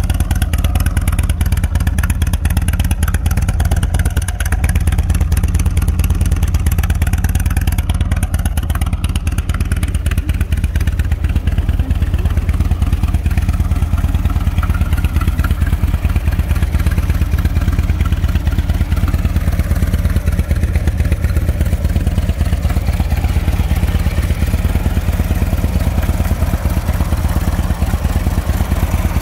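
Harley-Davidson Twin Cam 96 V-twin of a 2007 Ultra Classic Electra Glide idling steadily.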